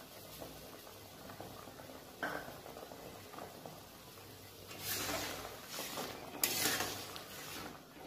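Sugar syrup with raw mango slices simmering in a steel wok, a faint steady bubbling crackle. About five seconds in, and again a little later, come louder rustling noises.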